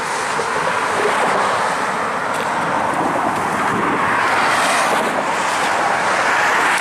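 Loud, steady road noise from vehicles passing close by on a highway bridge.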